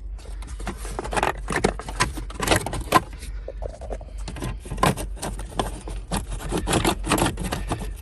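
A pick and hands prying at the plastic top cover of a 1997 Chevy Tahoe's steering column to work it loose: a string of irregular clicks, scrapes and rattles.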